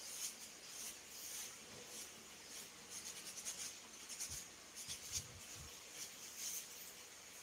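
Towel rubbed briskly over a freshly cut, close-cropped head: a faint, irregular scratchy rustle.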